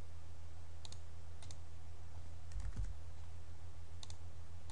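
Four light, sharp clicks from a computer mouse and keyboard, each a quick double, spread over a few seconds. A steady low hum runs beneath them.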